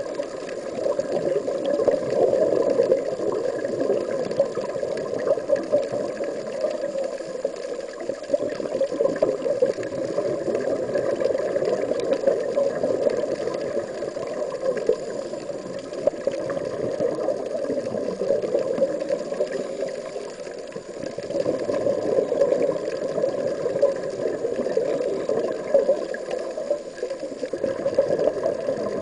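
Underwater noise heard through a diving camera's waterproof housing: a continuous muffled watery rush that swells and dips unevenly, with no distinct events.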